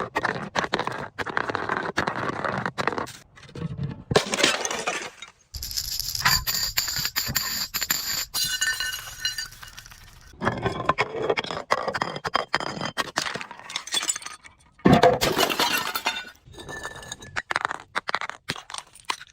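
Glass bottles being crushed and shattering: runs of crackling, crunching breaks and clinking shards. High ringing tones sound through the middle, and there is a loud crunch about three-quarters of the way through.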